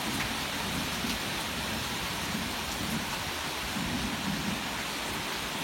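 Heavy rain pouring down steadily, with a low rolling rumble in the background underneath it.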